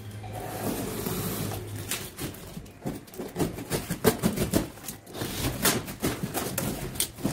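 Utility knife slitting packing tape and cardboard on a box: a run of short, irregular scraping and ripping strokes, a few of them sharper.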